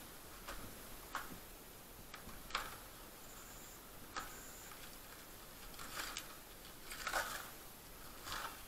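Plastic packing wrap crinkling as hands pull it apart, in short crackles every second or so.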